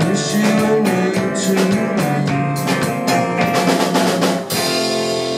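Live rock band playing the instrumental close of a song: acoustic and electric guitars with a Pearl drum kit pounding out the beat. About four and a half seconds in they land a final hit together and the chord is left ringing.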